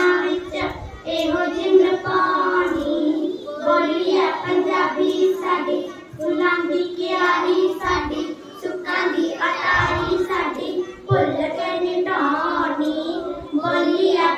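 A child singing a song in phrases, holding long notes with short breaks between lines.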